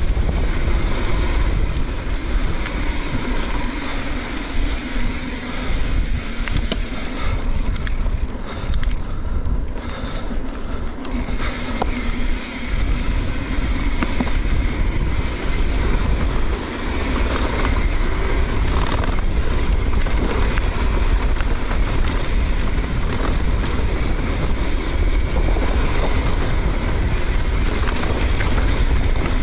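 Mountain bike descending a dirt trail: tyres rumbling over the ground and the bike rattling, with heavy wind noise on the action camera's microphone.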